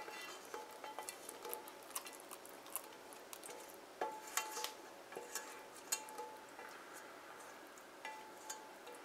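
Scattered light clinks and scrapes of a frying pan against the rim of a metal Bundt pan as the last of the melted sugar glaze is drained in. Some clinks leave a short metallic ring, and the loudest come about four seconds in and again near six seconds.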